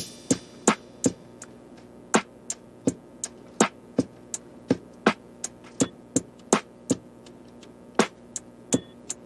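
Background music: sparse, sharp percussive hits, two or three a second in an uneven pattern, over a faint low hum.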